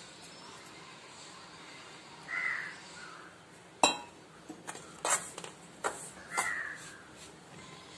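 Hand mixing wheat-flour dough in an aluminium bowl, with a few sharp clinks and knocks against the bowl, the loudest about four seconds in. Two short calls sound in the background, about four seconds apart.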